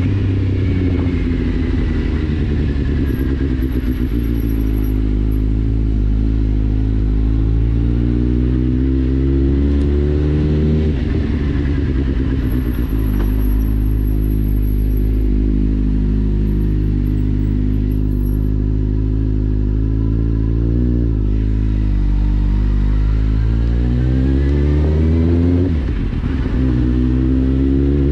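2010 Kawasaki Z750's inline-four engine through an Akrapovic exhaust with the dB killer removed, under way: the exhaust note repeatedly rises with throttle and falls through gear changes and roll-offs, dropping sharply about 11 and 21 seconds in and climbing again near the end.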